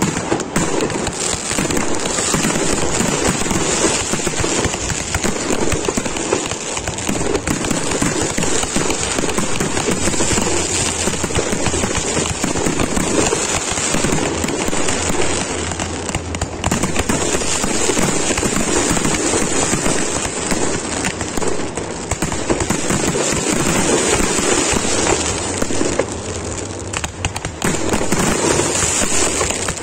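Professional fireworks display: firework batteries and aerial shells firing in a dense, continuous barrage of bangs and crackling.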